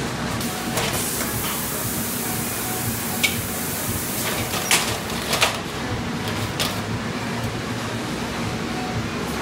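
Factory machinery running with a steady low hum, with a few short sharp clicks around the middle.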